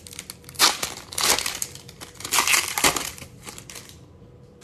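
Foil wrapper of a trading-card pack crinkling in bursts as it is torn open and the cards pulled out. It dies down about four seconds in.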